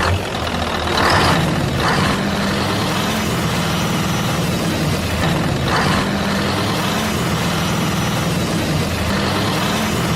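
Heavy truck engine running steadily at a low idle, with a few brief hissing bursts about a second, two seconds and six seconds in.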